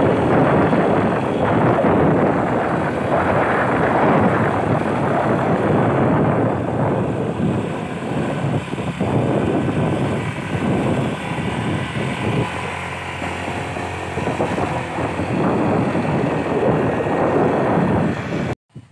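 Motorcycle riding along a road, the engine and wind noise running loud and steady, cutting off abruptly near the end.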